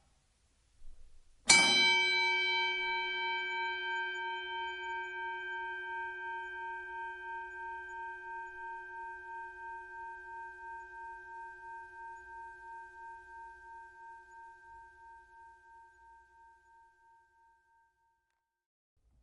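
Boxing ring bell struck once, ringing out with several tones and fading slowly over about fifteen seconds, its tone wavering in a steady pulse as it dies away.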